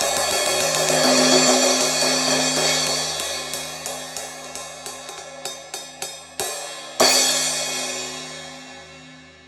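Sabian AA Medium Crash 15-inch cymbal, repaired by welding, struck repeatedly and left to ring. A run of lighter strikes comes about every half second, then one hard crash about seven seconds in, and the wash fades slowly near the end.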